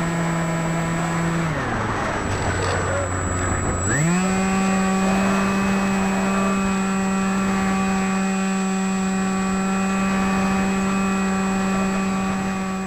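RC plane's Hawking 2826 2200 Kv brushless outrunner motor spinning a 6x4 APC pusher propeller, heard from on board. Its steady whine drops in pitch as the throttle is pulled back about a second and a half in. It then climbs sharply back up about four seconds in and holds steady at full power.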